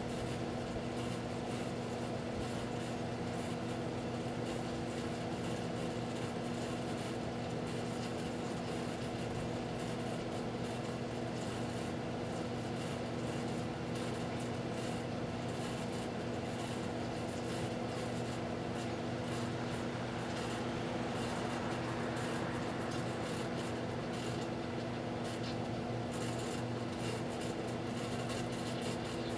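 1987 GE microwave oven running with a steady, even hum.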